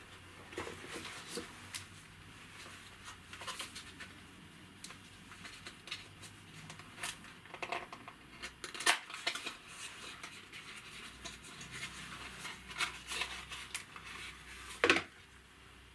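Product packaging being handled: irregular clicks, taps and scrapes, with a sharp knock about nine seconds in and the loudest one near the end.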